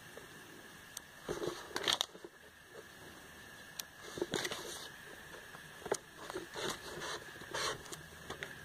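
Glossy paper catalogue pages being handled and turned, with several short rustles and crackles of paper.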